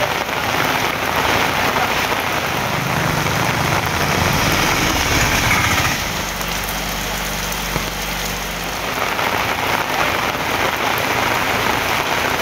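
Heavy rain pouring down on a town street, a dense steady hiss of rainfall. A low steady hum joins it for a few seconds around the middle.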